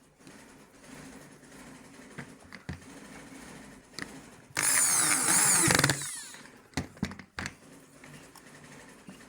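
A power tool runs hard for about a second and a half about halfway through, its whine sweeping up and down, over a steady low hum, with a few sharp knocks before and after.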